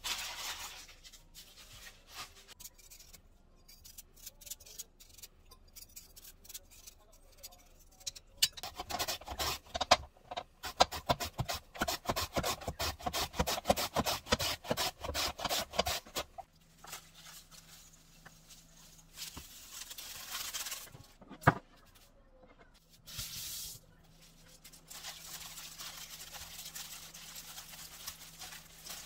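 Korean radish being julienned on a mandoline slicer: a quick, even run of slicing strokes lasting about eight seconds. Before it, the radishes' plastic bags crinkle. After it come a single sharp knock and the soft rustle of radish strips being tossed with a plastic-gloved hand.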